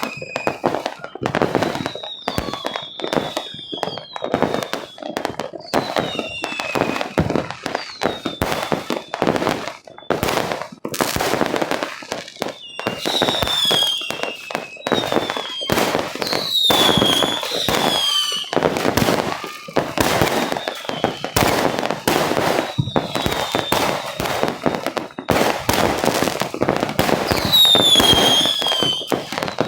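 Fireworks going off in rapid succession: a dense string of bangs and crackles, with repeated short whistles that fall slightly in pitch.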